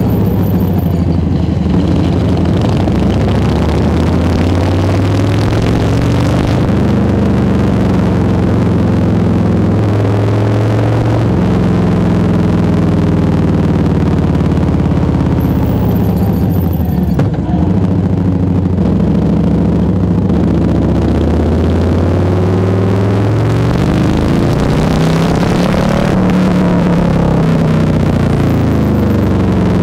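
Harley-Davidson FXBB Street Bob's Milwaukee-Eight 107 V-twin under way through a Jekill&Hyde valve exhaust, its revs rising and falling repeatedly through gear changes and throttle shifts.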